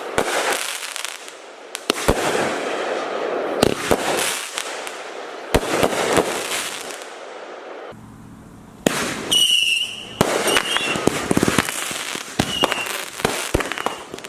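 Consumer aerial fireworks going off: sharp bangs about every two seconds, each followed by a fading crackling hiss. After a short lull there is a dense rapid run of crackling pops, with a brief high whistle as it starts.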